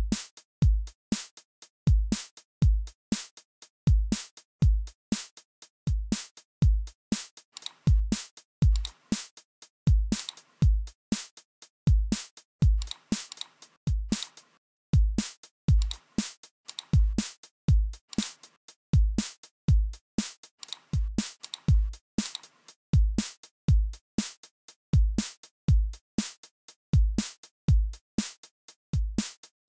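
Background electronic music: a drum-machine beat with a steady, regular kick drum and sharp high clicks.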